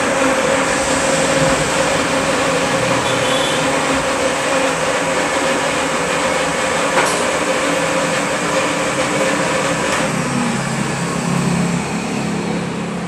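Loud, steady mechanical rushing noise with a constant hum.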